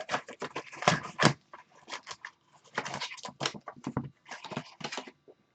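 Crinkling and rustling of foil trading-card packs being torn open and cards handled, a quick irregular run of small crackles.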